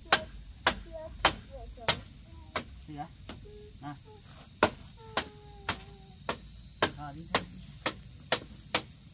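A hammer striking at an even pace of just under two blows a second, over a steady high-pitched drone of insects.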